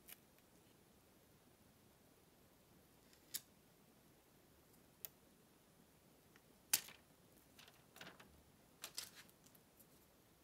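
Quiet handling of a plastic webcam: a few separate sharp clicks and taps, the loudest about two-thirds of the way in, then a short run of small crinkling crackles as the clear protective film is peeled off its front.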